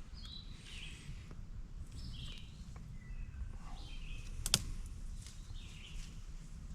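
Songbirds calling in the woods, short chirps every second or two, over a steady low rumble. A single sharp click about four and a half seconds in.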